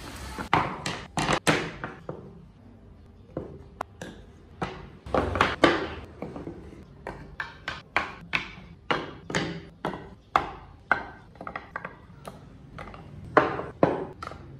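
Carved wooden model parts being handled and fitted together on a table: an irregular run of sharp wooden knocks and clacks, some coming in quick clusters.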